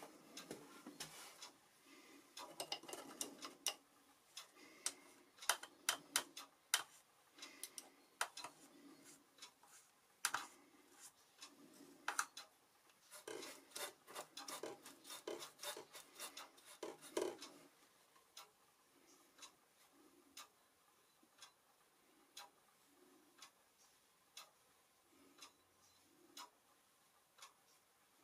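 Watercolour brush and palette being handled: irregular clicks, taps and rubbing for the first two thirds, then faint steady ticking about once a second.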